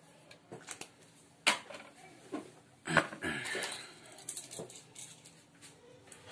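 Workbench handling noises: a few sharp clicks and knocks, the loudest about one and a half and three seconds in, as a tin of soldering flux and tools are set down on a rubber mat, with rustling after the second knock.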